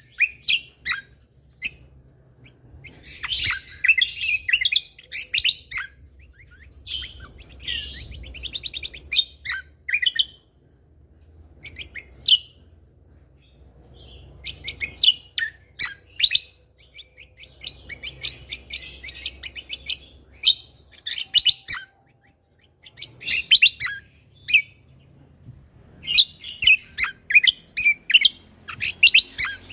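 Cucak kombo (kecial kombok) songbird singing in full voice: bursts of rapid, high chirps and trilled phrases, each a second or two long, broken by short pauses, with a faint low hum underneath.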